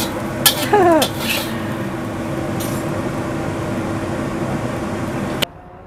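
A metal spatula clinking and scraping against a ceramic plate a few times in the first second and a half, over a steady hum. The hum cuts off suddenly near the end.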